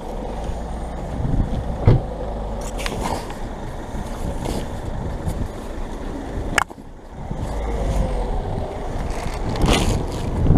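Low rumble of wind and movement rubbing on a body-worn GoPro, with a sharp knock about two seconds in and another about six and a half seconds in.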